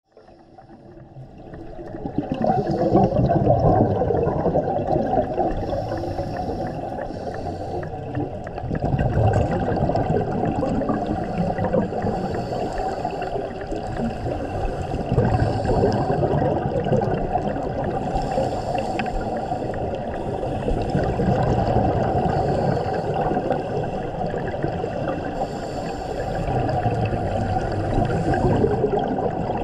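Muffled bubbling and rumble of scuba divers' exhaled air bubbles, heard underwater through a camera housing. The sound swells every five or six seconds, once with each exhalation.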